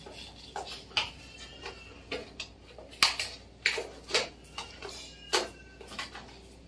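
A small cardboard box of incense cones being worked open by hand: an irregular run of sharp cardboard clicks and scrapes, loudest around three to five seconds in.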